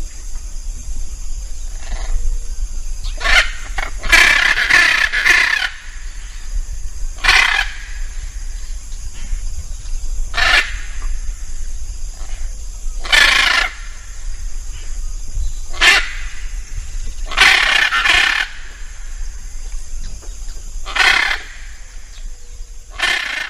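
Hyacinth macaw calling loudly, about ten calls a few seconds apart, two of them drawn out for over a second, over a steady high hiss.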